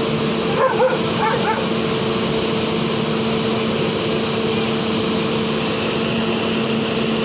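A heavy engine running steadily with an even hum, with a dog giving a few short yelps about a second in.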